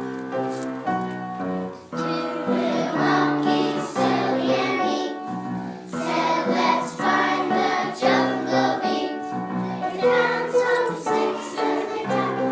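Music: a song with a choir singing.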